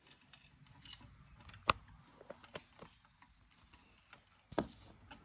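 Scattered small clicks and knocks of plastic and metal 3D printer parts being handled during assembly, with two louder knocks, one under two seconds in and one near the end.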